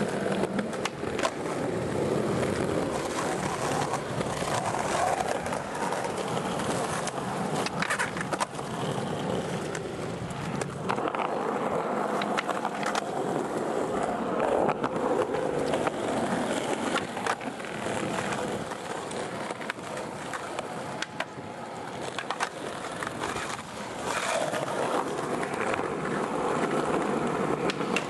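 Skateboard wheels rolling steadily over concrete, broken several times by sharp clacks of the board striking the ground.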